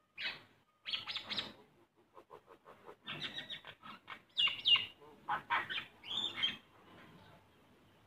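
Common myna calling: a run of harsh, raspy chatters and squawks, with a quick series of clicks about two seconds in. The calls are loudest around the middle and die away near the end.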